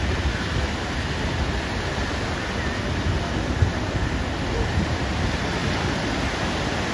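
Ocean surf breaking and washing up the beach, a steady rushing noise with a heavy low rumble, and one brief thump about halfway through.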